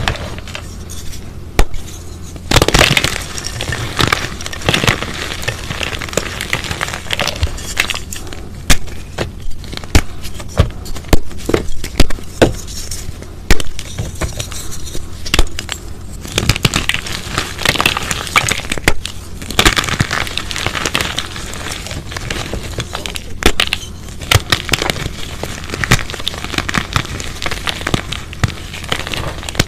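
A sun-dried chalk cylinder being squeezed and crushed by hand into lumps and powder: dense crunching with many sharp cracks and short pauses between squeezes.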